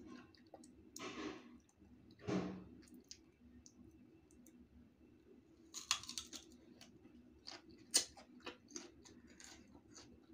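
Close-up mouth sounds of biting and chewing crisp, unripe green mango: a run of crisp crunches and wet clicks from about six seconds in, the sharpest near eight seconds. Two short breathy noises come before, about one and two and a half seconds in.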